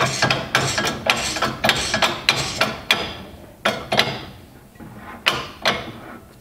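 Hand-pump lever of a hydraulic bench press being worked, giving a quick run of sharp metallic clacks for about three seconds, then a few separate knocks, as a sealed bearing is pressed down to depth with a depth tool.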